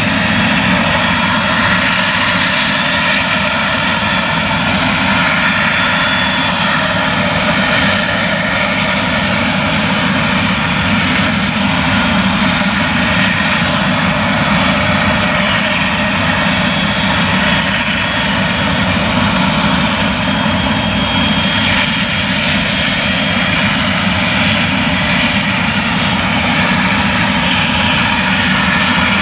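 The Claas Jaguar 970 forage harvester's MAN V8 engine running steadily under load while it chops maize, with the drone of the chopper and crop blower.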